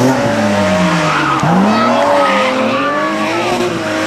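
Race car engine revving hard as the car slides sideways through a corner, its pitch dropping and then jumping back up twice, with the tyres squealing partway through.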